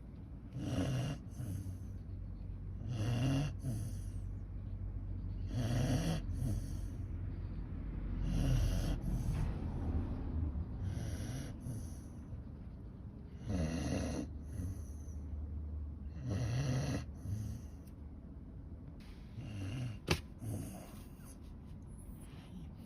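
Shiba Inu dog asleep and snoring like a person, a snore about every two and a half to three seconds, eight or so in all. A single sharp click sounds near the end.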